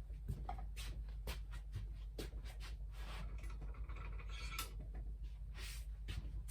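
Scattered light clicks and short rustles of small tools being handled, over a steady low hum.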